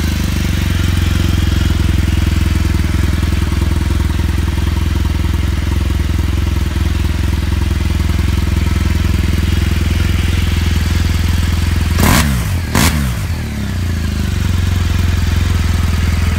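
BMW R1200GS Adventure's boxer-twin engine idling steadily through its stock exhaust, with two quick throttle blips about twelve and thirteen seconds in.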